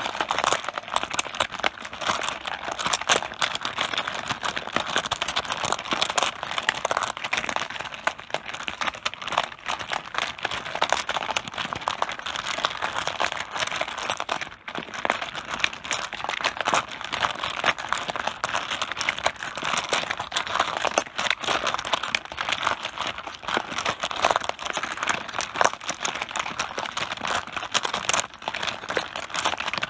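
Mahjong tiles clattering densely and continuously against each other on a tabletop, a fast run of hard clicks with a brief lull about halfway through.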